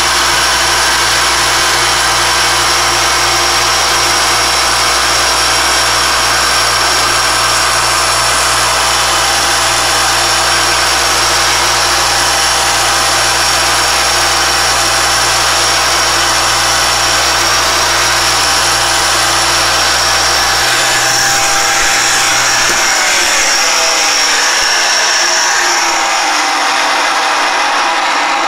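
Pantograph milling machine's spindle running steadily with a 1/8 inch four-flute carbide end mill cutting the inner pocket of a thin metal chapter ring, a constant whine with a low motor hum. About 21 seconds in the hum stops and the pitch falls as the spindle winds down once the pocket is cut through.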